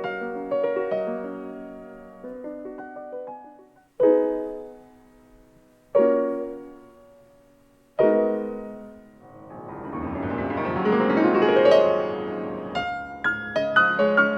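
Solo piano playing: flowing broken chords, then three loud chords struck about two seconds apart, each left to ring and die away, followed by a swelling cascade of notes and a quick run near the end.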